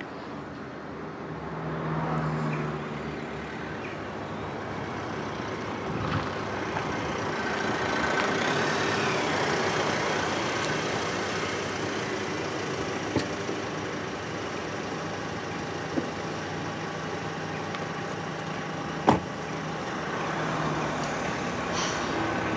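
A car engine running with road noise that swells and fades, with a single sharp knock about nineteen seconds in.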